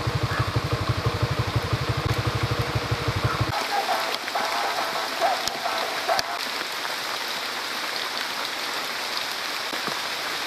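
Steady rain falling, an even hiss. For the first three and a half seconds a fast, low pulsing sound runs under it, then stops abruptly.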